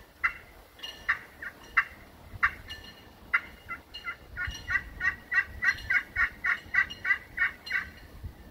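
Zebrawood turkey pot call with a bronze glass/aluminum striking surface, played with a striker to imitate a hen turkey: a few scattered single notes, then from about four seconds in a steady run of yelps, about three a second.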